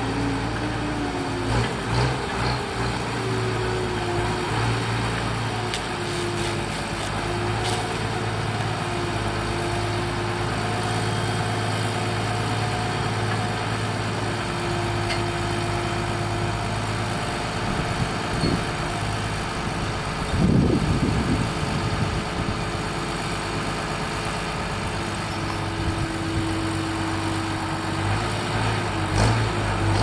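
International tractor's diesel engine running steadily at idle, with a short louder burst about twenty seconds in.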